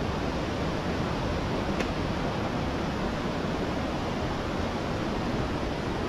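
Mountain stream rushing over rock cascades: a steady, even roar of white water.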